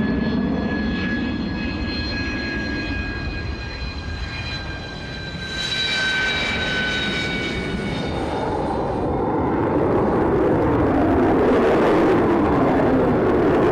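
A Sukhoi Su-57 fighter's twin jet engines running on the runway. A high turbine whine sinks slowly in pitch over a steady roar for the first eight seconds, then the roar swells and grows fuller near the end.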